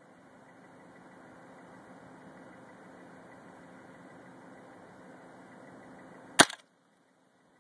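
A single shot from a Smith & Wesson M&P 15-22 semi-automatic .22 LR rifle, one sharp crack about six and a half seconds in, the loudest thing here. Before it there is a steady low hum and hiss, which cuts out right after the shot.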